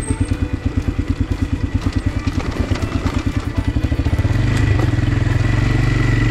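Motocross bike engine idling with an even pulsing beat, then revved up and held higher about four seconds in.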